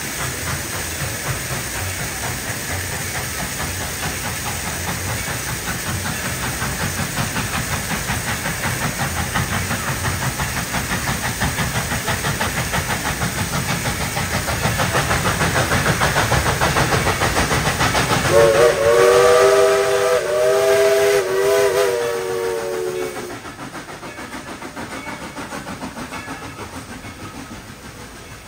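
Former White Pass & Yukon No. 70 steam locomotive working, its exhaust chuffing in a fast, even rhythm that grows louder as it nears. About two-thirds of the way in, its chime whistle sounds several notes at once for about five seconds, and then the chuffing drops away quickly.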